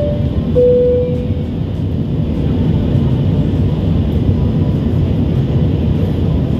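Steady jet airliner cabin noise in flight, engines and airflow. Right at the start a two-note falling cabin chime sounds, its lower note held for about a second.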